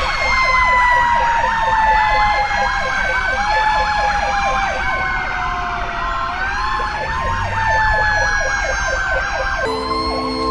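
Emergency-vehicle sirens sounding together: a slow wail falling and then rising in pitch over rapid yelp sweeps, about four a second. A steady horn tone comes in near the end.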